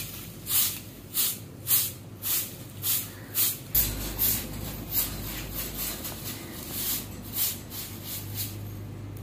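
Short handleless grass-bristle broom swishing across a dusty concrete floor in quick repeated strokes, a little under two a second, softer in the second half.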